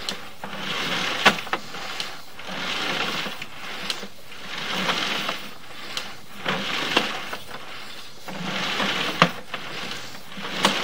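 Sewer inspection camera's push cable being pulled back out of the line and fed onto its reel, a hiss of sliding cable that swells about every two seconds with sharp clicks in between.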